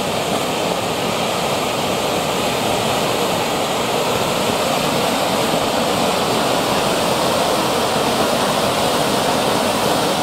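Weco Blinkstars fountain, a Swiss-style ground volcano, burning with a steady rushing hiss as it throws up its column of sparks.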